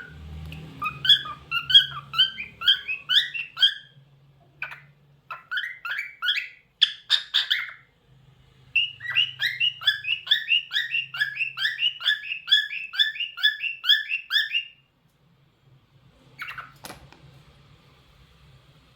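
Cockatiel singing: quick runs of repeated chirping notes, first a short run, then scattered notes, then a longer even run of about three to four notes a second lasting some six seconds. It falls quiet near the end apart from one short call.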